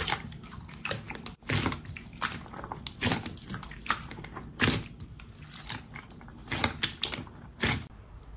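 Clear orange slime being squeezed and kneaded by hand, giving irregular bursts of wet squelching and crackly popping every second or so.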